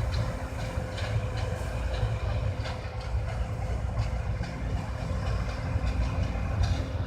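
John Deere C670 combine harvester running steadily while harvesting rice: a deep, even rumble with a faint steady whine and scattered light rattles.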